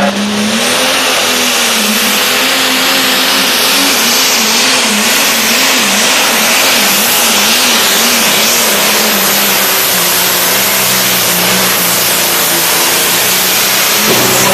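Turbocharged diesel engine of a John Deere Pro Stock pulling tractor running hard under full load as it drags a sled down the track. Its pitch wobbles quickly up and down for several seconds mid-pull, then steadies, over a loud hiss.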